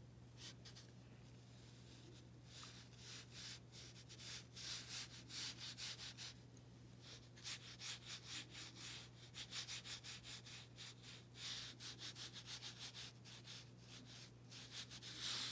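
Paintbrush rubbing paint onto textured watercolour paper in quick, repeated short strokes, a faint scratchy rasp several times a second, over a low steady hum.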